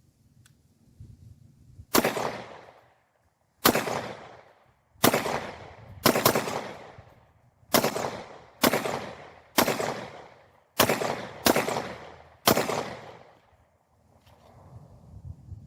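About ten pistol shots from a Polymer80 compact build with a Glock 23 barrel, chambered in .40 S&W. They are fired one at a time at a steady pace, roughly one a second, and each sharp crack trails off in a short echo. The string runs cleanly without stoppages.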